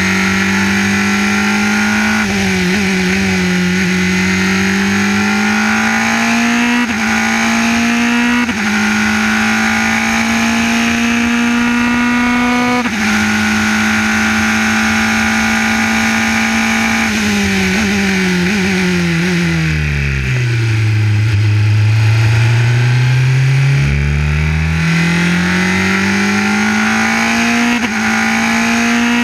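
Formula 3 car's two-litre four-cylinder racing engine heard from onboard at full throttle, the pitch climbing and dropping sharply with several quick upshifts. Later the revs fall steadily as the car slows for a corner, sit low briefly, then climb again as it accelerates out.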